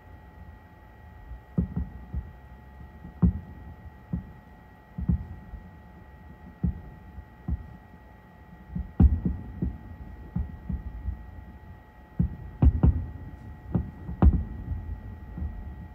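Distant fireworks shells bursting: a string of irregular low booms, sometimes two in quick succession, loudest about nine seconds in and again in the last few seconds.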